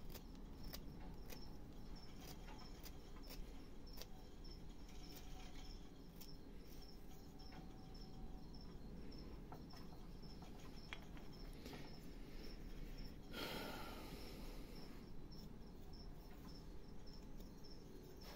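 Crickets chirping steadily in a high pulsing trill, with faint clicks and scrapes of a small carving gouge cutting into a block of wood. About two-thirds of the way through there is one louder scrape lasting about a second and a half.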